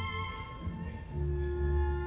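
Solo violin with orchestra: sustained violin notes over the orchestra, with strong low notes entering a little past a second in. This is a live concert recording.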